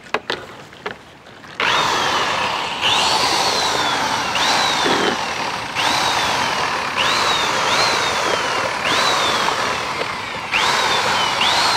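Drill-type electric puttu flour mixer with a long paddle, churning milkshake in a large aluminium pot. It starts about a second and a half in and runs with a motor whine that jumps up and slides down about once a second, over the splashing of the liquid.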